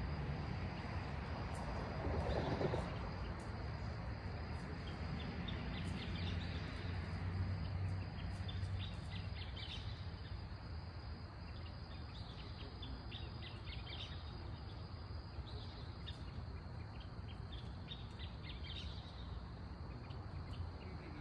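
Night ambience: a steady low hum with background noise, easing off a little after the first several seconds, and many short, high chirps scattered through it.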